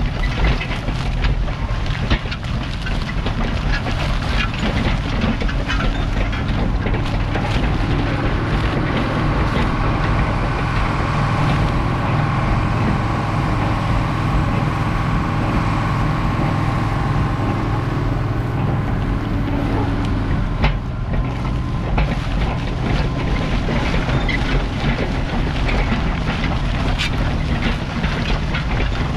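A White 4-225 tractor's turbocharged Caterpillar 3208 V8 diesel runs steadily under load while the disc harrow's blades cut the soil and crunch through corn stalks, a dense crackling rush over the engine's drone. For several seconds in the middle the crackle thins and the steady engine hum comes forward while the disc gangs ride up on their wheels, then the cutting noise picks up again about two-thirds of the way in.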